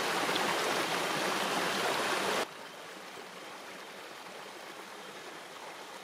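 Stream water running steadily, a rushing hiss with no distinct tones. About two and a half seconds in it cuts suddenly to a quieter stream sound.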